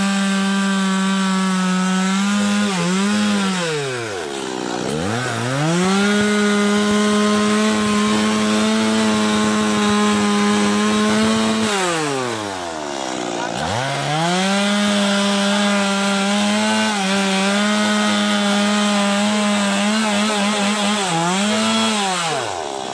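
Stihl two-stroke chainsaw cutting into the base of a tree trunk at full throttle. Its engine note falls away and revs back up about four seconds in and again about twelve seconds in, and eases off near the end as the throttle is let off between cuts.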